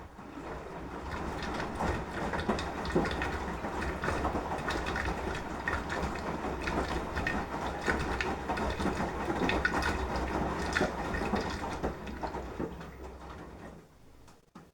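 Beko washing machine drum turning during a 30° wash: a low motor hum under the sloshing and tumbling of wet laundry and water. It fades out and stops near the end, as the drum pauses between turns.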